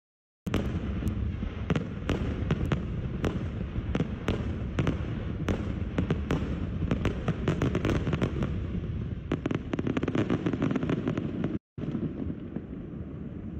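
Fireworks display: a dense run of sharp bangs and crackles over a continuous low rumble, starting about half a second in and thinning out near the end.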